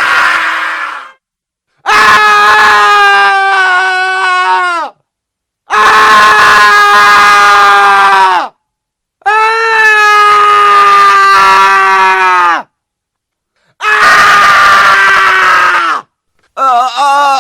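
A man screaming in agony: a series of long, loud screams of about three seconds each, held on one pitch and falling off at the end, with short silences between them. Near the end a wavering, sobbing cry begins.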